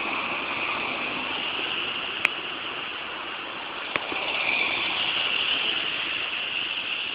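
Steady hiss of street traffic, with two short clicks about two and four seconds in, and the noise growing louder a little after four seconds.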